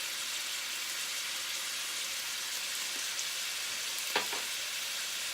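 Vegetables sizzling steadily in hot oil in a wok, with one short knock about four seconds in.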